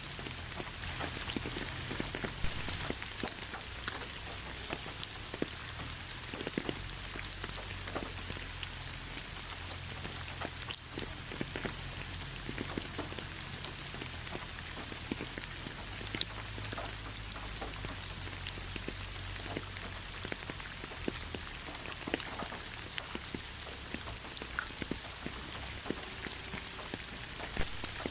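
Steady rain falling, an even hiss with many separate drops ticking at irregular moments.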